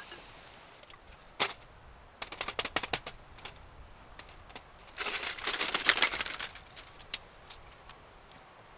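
Folding metal wood stove being taken apart and folded flat: sharp metallic clicks and clatter as its panels knock and unhook, with a rougher scraping, rustling rush lasting about a second and a half around five seconds in, and a last click shortly after.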